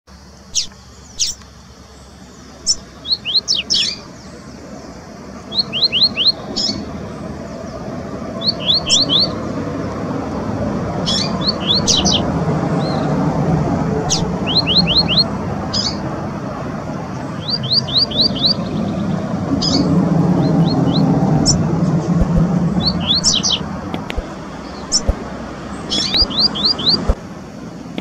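Double-collared seedeaters (coleiros) singing: short, sharp, high notes delivered in quick runs of three to five, repeated every second or two, over a low background rumble that grows louder in the middle.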